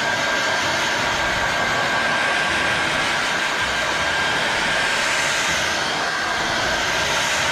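Handheld hair dryer running steadily, blowing onto a freshly spray-painted motorcycle fairing to dry the paint: an even rush of air with a thin steady whine.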